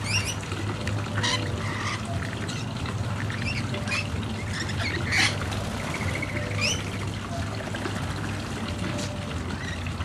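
Rainbow lorikeets giving short, scattered screeching squawks every second or so, over a steady low hum.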